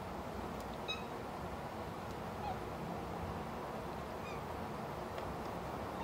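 A domestic cat making a few short, faint, high squeaks as it yawns awake, over a steady background hiss.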